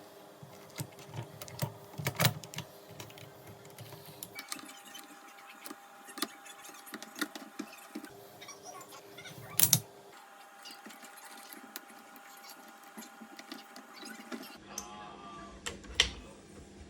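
Small metal engine parts clicking, tapping and knocking as they are handled and fitted during engine assembly, with a few louder sharp knocks about two seconds in, near the middle and near the end, over a faint steady hum.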